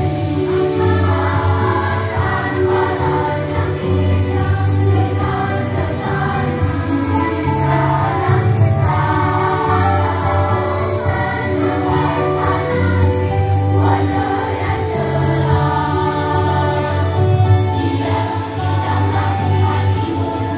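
A primary school choir of boys and girls singing a song together, holding sustained chords.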